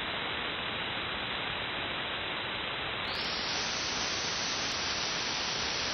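Steady static hiss from a 160-metre SSB receiver between transmissions, with no station on the frequency. About three seconds in the hiss grows brighter as the receive filter is widened.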